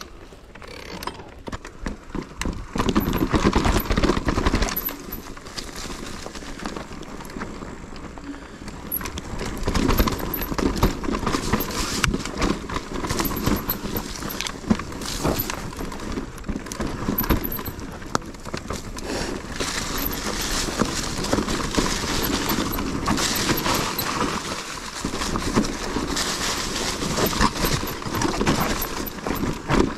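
Mountain bike riding over rough, rocky trail: tyres crunching on stones and the bike rattling in a fast, uneven run of knocks and clatters.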